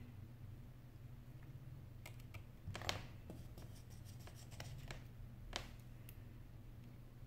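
Faint small clicks and scratches of a precision screwdriver and fingertips working on the screws and metal brackets inside an opened iPhone 8 Plus, the loudest tap about three seconds in, over a low steady hum.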